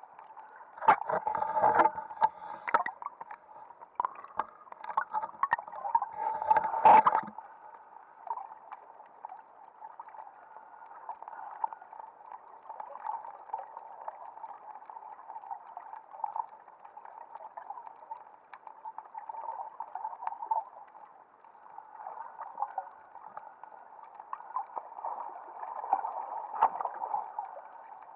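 Muffled underwater noise picked up through an action camera's waterproof housing: a steady dull hiss, with a spell of crackling and knocking from about one to seven seconds in and a few more knocks near the end.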